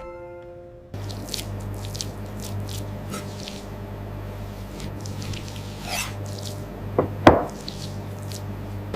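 Steady low machine hum with scattered clicks, taps and knocks, the loudest two about seven seconds in. A short falling run of tones ends about a second in.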